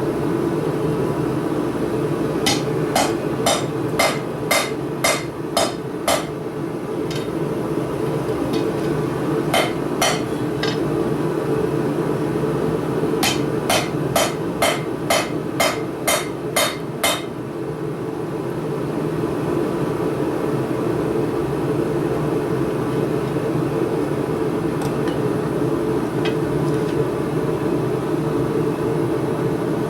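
Hammer striking hot steel on an anvil while forging blacksmith tongs: two runs of about eight ringing blows, two a second, with a few lighter blows between, then the hammering stops. A steady low rumble runs underneath.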